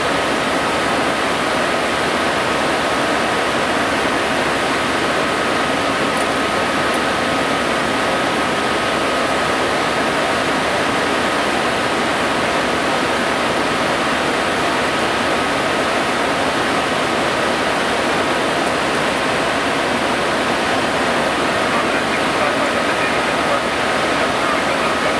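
Steady rushing airflow noise inside an MD-80 airliner's cockpit in flight, even and unchanging, with a thin steady whine held over it.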